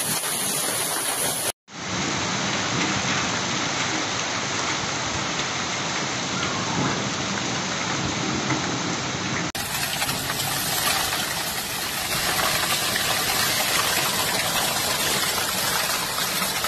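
Heavy rain and hail of a violent hailstorm pouring down, a dense steady hiss of falling ice and water on the ground. Three recordings follow one another: there is a short gap about a second and a half in and an abrupt change in the sound about nine and a half seconds in.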